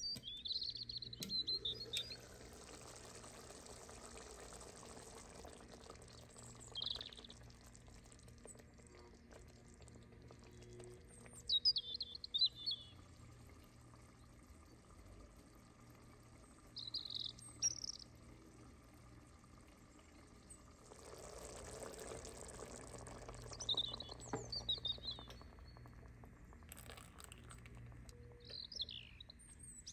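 Small birds chirping in short bursts every few seconds, over two spells of soft pouring noise.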